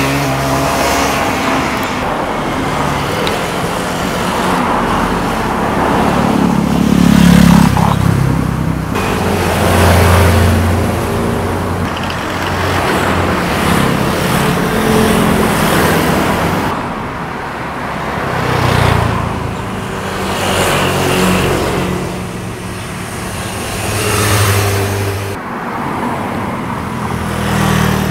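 Motorcycles passing one after another, each engine revving and rising then falling in pitch as it goes by, with several separate swells of loudness.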